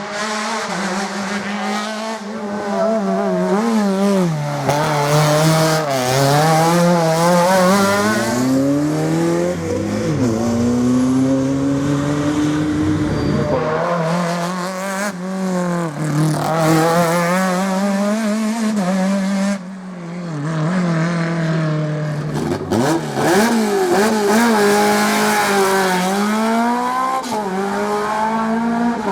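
Rally car engines revving hard through the gears, the pitch climbing and then dropping sharply again and again as the drivers shift and lift, with a brief dip in level about two-thirds of the way through.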